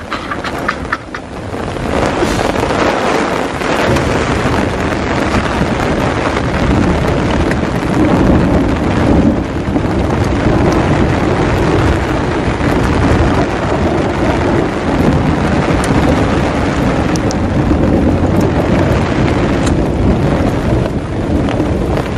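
Thunderstorm: steady, heavy rain with low rolling thunder, the rumble swelling about eight to ten seconds in.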